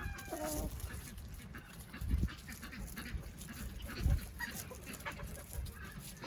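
A rooster's crow trailing off and falling in pitch in the first half second, then chickens moving about in the farmyard with faint scratchy ticks and a few low thumps.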